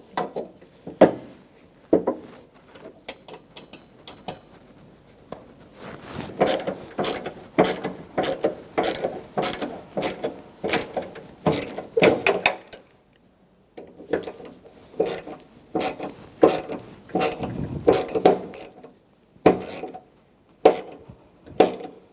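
Hand ratchet with a T20 Torx socket clicking in runs of quick strokes as it drives a door handle mounting screw, with short pauses between runs.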